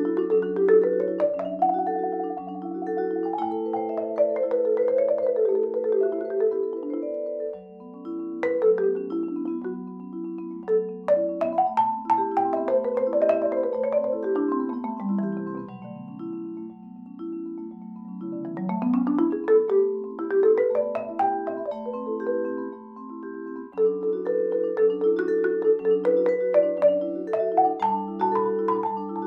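Musser M55 vibraphone and Adams marimba playing together with mallets. Repeated low chord patterns run under quick runs that sweep up and down, with the vibraphone's tones ringing on.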